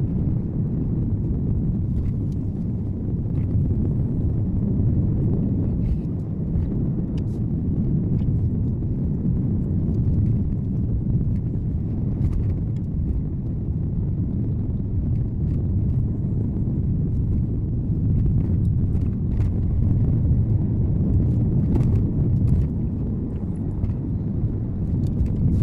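Car driving along a mountain road as heard by a dashcam: a steady low rumble of road and engine noise, with scattered small clicks throughout.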